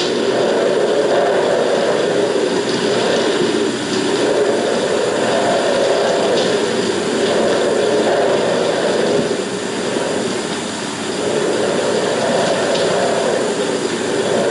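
Wind blowing in gusts, rising and falling every two to three seconds over a steady hiss from an old 16mm film soundtrack.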